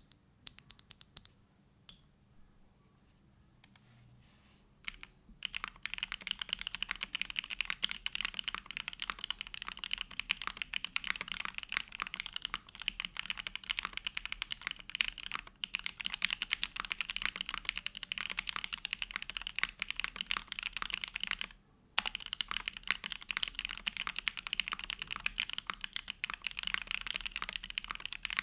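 Typing on a TKD Cycle7 mechanical keyboard with hand-lubed Gateron Box Pink switches, a carbon-fibre plate, case foam and GMK Grand Prix ABS keycaps. A few single keystrokes come in the first five seconds, then fast continuous typing, broken by a short pause about three quarters of the way through.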